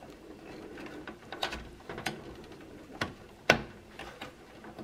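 Sharp plastic clicks and light handling as a DDR2 RAM module is worked into its motherboard slot and the slot's retention clips are pressed. There are four or five separate clicks; the loudest comes about three and a half seconds in.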